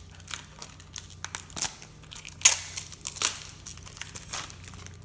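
Plastic toy packaging crinkling and tearing as it is opened by hand, in a run of irregular crackles with a louder rip about two and a half seconds in.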